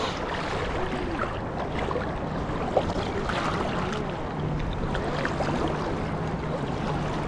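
Shallow surf water sloshing and lapping around a wading angler, with wind on the microphone. A faint steady low hum comes in about four seconds in.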